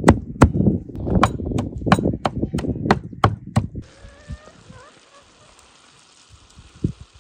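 Knife chopping vegetables on a cutting board, about three sharp strikes a second, stopping abruptly about four seconds in. Then quiet outdoor ambience with a few faint bird chirps and a single knock near the end.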